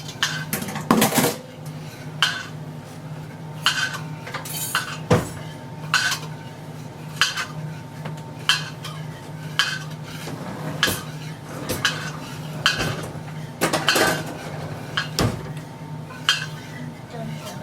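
A utensil stirring pumpkin pie filling in a mixing bowl, clinking against the side of the bowl about once a second.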